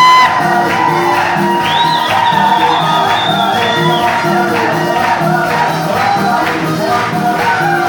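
Live praise-band music with a steady beat and jingling percussion, the congregation's voices and shouts over it. A rising held cry opens it, and a long high note is sustained from about two seconds in.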